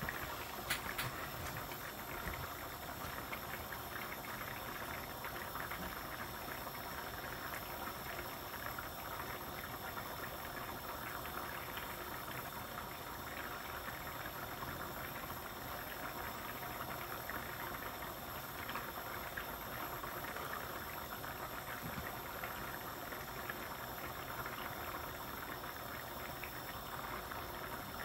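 Curry sauce simmering steadily in a frying pan, a continuous fine bubbling as it reduces down.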